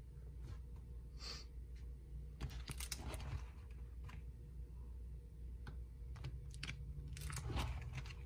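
Clear plastic sleeve pages of a ring binder being turned, crinkling and rustling twice: once about two and a half seconds in and again near the end, with a few light clicks in between.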